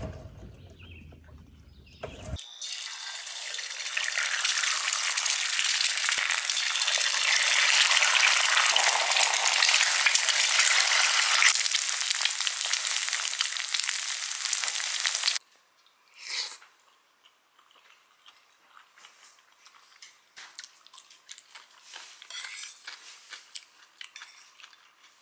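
Four eggs frying in hot oil in a stainless steel pan, sizzling steadily with fine pops for about thirteen seconds before cutting off suddenly.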